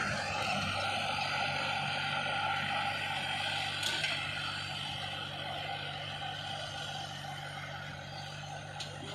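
Turbocharged diesel engine of a Swaraj 960 tractor running steadily while working a disc harrow, slowly getting fainter.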